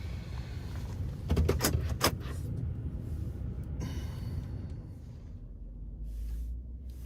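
Low rumble of a car, with a quick cluster of sharp clicks and knocks between about one and two seconds in.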